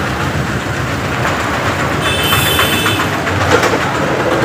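Loud, steady rumbling street-traffic noise, with a brief high-pitched squeal about two seconds in.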